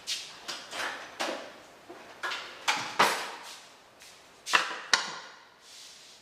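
Kitchen items being handled on a counter: a quick string of knocks, clacks and swishes about every half second, with two sharp clicks near the end.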